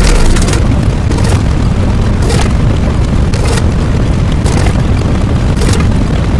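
Loud, heavily distorted booming rumble like a continuous explosion, with a sharper hissing burst about once a second.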